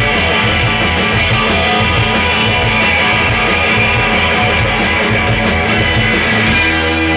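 Punk rock band playing live on electric guitars, bass and drums, with a pulsing, even beat. Near the end the beat drops out and a chord is left ringing.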